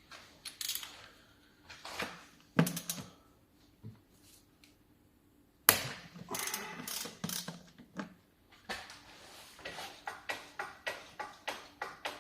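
Hand tools knocking and scraping, then a ratchet wrench worked in a steady rhythm of about three clicks a second.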